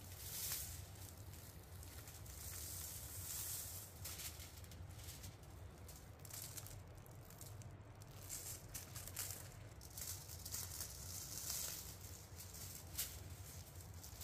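Salt and dry spice rub pattering onto aluminium foil and rustling against a beef shank as they are sprinkled over it and rubbed in by hand, in soft uneven spells of hiss, with one sharp click near the end.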